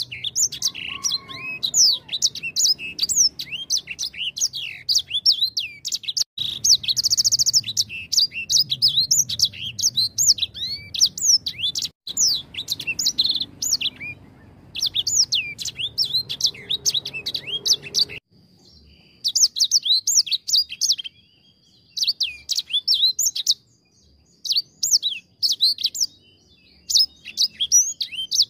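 Edel sanger, a small caged finch-like songbird, singing a fast, continuous run of high twittering chirps and trills, with a short pause about eighteen seconds in.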